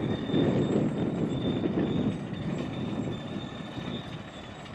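World War Two-era earthmoving machine working, with a rough, fluctuating mechanical rumble that is loudest in the first couple of seconds and then eases, and a thin steady high whine over it.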